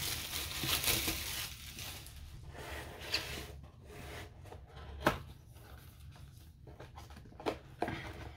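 Diamond painting kit box and its packaging handled on a wooden table: rustling of the packaging at first, then scattered light taps and knocks of cardboard on the tabletop, the sharpest about five seconds in.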